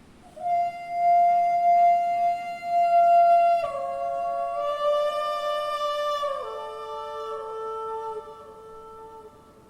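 A shofar (ram's horn) blown in one long blast that holds a steady note, then steps down in pitch twice and grows quieter before it stops near the end.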